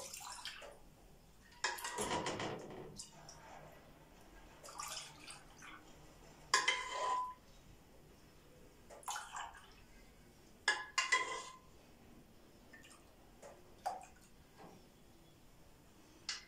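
Warm milk being ladled from a bowl into small clay pots: short splashy pours and light clinks of the ladle against the pots and bowl, about six times.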